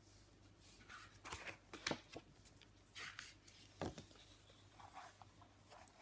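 Faint rustling and soft taps as the paper pages of a picture book are opened and turned, in several short bursts, the strongest about two and four seconds in.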